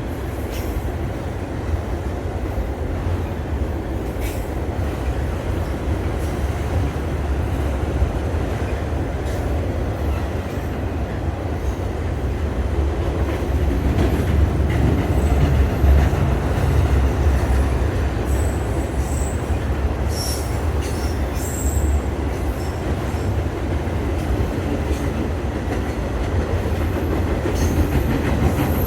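A train rolling past steadily, its wheels rumbling and clicking over the rails, with a few short, high wheel squeals about two-thirds of the way through.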